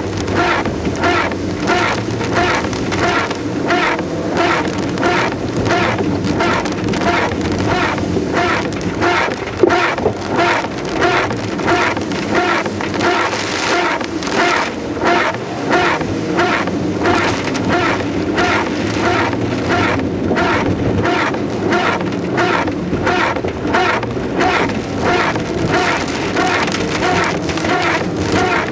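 Inside a car driving in heavy rain: rain on the windshield and roof over a steady engine and road hum, with a rhythmic swish about twice a second, typical of windshield wipers on a fast setting. One sharper knock about ten seconds in.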